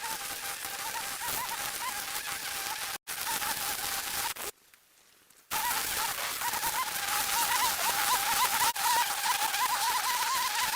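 Cordless string trimmer with nylon cord running and cutting grass: a steady hiss with a motor whine that wavers in pitch as the cord meets the grass. It stops for about a second just before the halfway point, then starts again.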